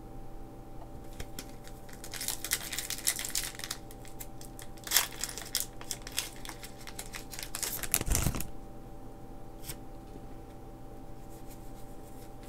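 Foil Pokémon booster pack wrapper being torn open and crinkled, in crackling bursts about two seconds in, again around five seconds and near eight seconds, with a dull thump near eight seconds. A few light clicks follow near the end.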